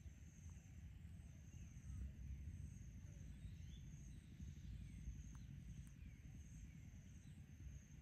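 Faint outdoor ambience. A high, pulsing insect trill repeats about once a second, with a few faint bird chirps over a low rumble.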